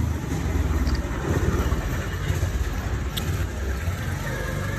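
Low rumble of motor traffic on the street, with one sharp tap about three seconds in.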